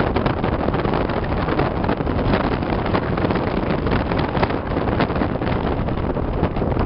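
A 1958 Chevrolet Bel Air with a 283 V8 driving, with wind buffeting the microphone over the engine and road noise.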